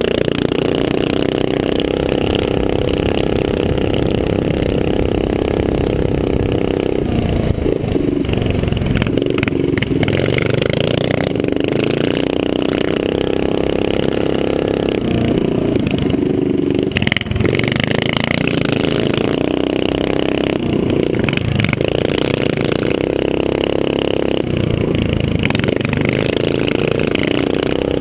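Small mini-bike engine running hard under race throttle, heard from the rider's helmet camera, easing off briefly several times and coming back up, with a rushing noise on top.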